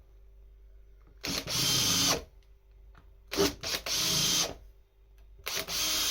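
Makita 18V cordless drill in its high-speed setting, driving screws one after another. It makes three bursts of about a second each with a steady whine, separated by short pauses.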